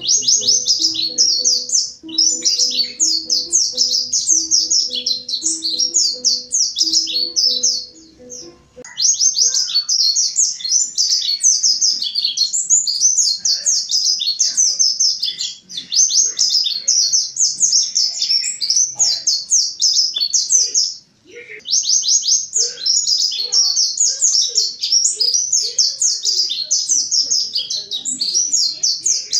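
Mountain white-eye (pleci montanus) singing a long, fast, high twittering song, with short breaks about 9 and 21 seconds in. Soft plucked-string music plays underneath for the first nine seconds or so.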